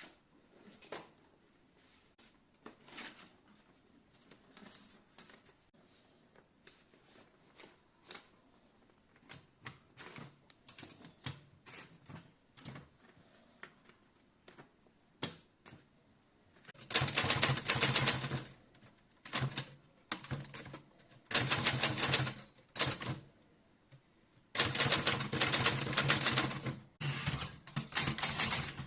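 Torpedo 6 manual typewriter being typed on: scattered, fairly quiet keystroke clicks at first, then from about halfway in, three loud bursts of rapid typing with short pauses between them.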